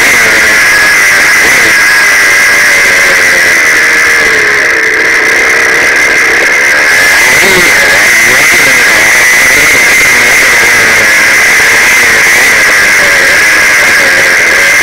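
KTM 85 SX two-stroke dirt bike engine heard from on board, running loud with the revs rising and falling as it rides. The throttle eases briefly about a third of the way through, then the engine picks up again.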